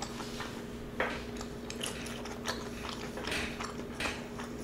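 Close-miked chewing and biting of penne pasta with shrimp and andouille sausage: soft wet mouth clicks and crunches. A metal fork clicks against the electric griddle plate. A faint steady hum runs underneath.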